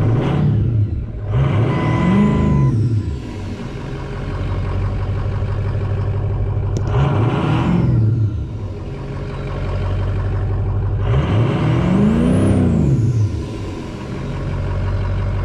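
Ford 6.0L Power Stroke V8 turbo-diesel idling and revved four times, each rev rising and falling back to idle, with a faint whistle rising and falling with each rev. It starts and runs smoothly now that debris has been cleaned out of its sticking IPR valve.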